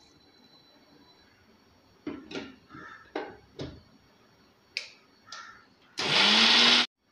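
Steel jar of a Blue Leaf mixer grinder knocked and clicked into place on its base, several times, then the motor runs in one short loud burst, its pitch rising as it spins up, grinding coconut and green chillies into a paste. It cuts off suddenly.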